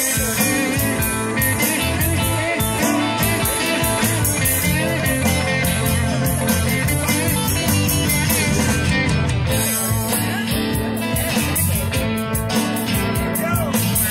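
Rock band playing an instrumental passage, with guitar over bass and drums and a steady beat of cymbal ticks.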